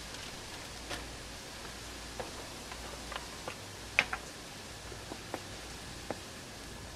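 Scattered light clicks and taps as hands handle a plastic cooking-oil bottle and paper towel to oil the grill grate, the sharpest click about four seconds in, over a faint steady hiss.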